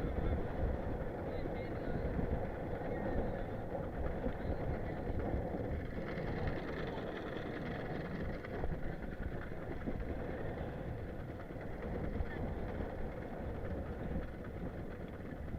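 Fishing boat's engine running steadily, with strong wind buffeting the microphone.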